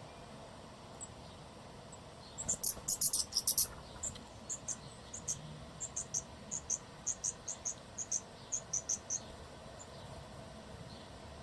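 A series of short, very high-pitched animal chirps: a quick cluster about two and a half seconds in, then evenly spaced chirps at about three a second, stopping a little after nine seconds.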